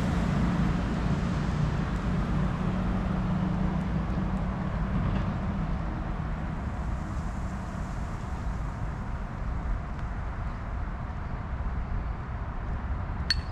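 Steady road traffic noise, with a vehicle engine's low hum fading away in the first few seconds. A single sharp crack comes near the end.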